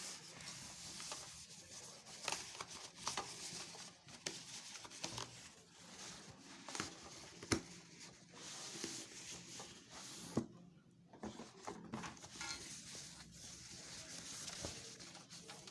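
Packaging being handled during an unboxing: irregular rustling and crinkling with scattered light clicks and knocks, one sharp click about seven and a half seconds in and a brief lull a few seconds later.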